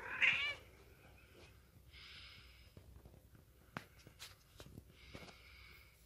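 A kitten gives one short, high mew right at the start as it wrestles with an adult cat, followed by quieter scuffling with a few light clicks.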